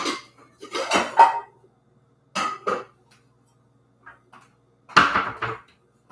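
Dishes clinking and clattering in four short bursts as they are handled in a kitchen cabinet, the loudest about a second in and about five seconds in.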